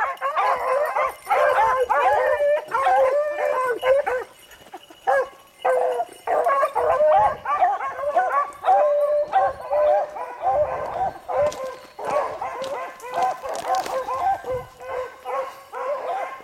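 A pack of beagles baying on a rabbit's track: many short, overlapping bays in quick succession, the hounds giving voice because they have the scent line again.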